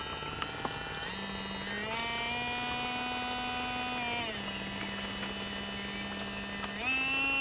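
Electric drive of a radio-controlled model tugboat humming steadily. Its pitch steps up about a second in and again at two seconds, drops a little past four seconds, and rises again, louder, near the end as the throttle is changed.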